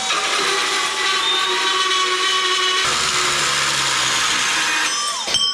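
Electric angle grinder running at full speed while cutting a small piece of steel, then switched off and winding down a little after five seconds in.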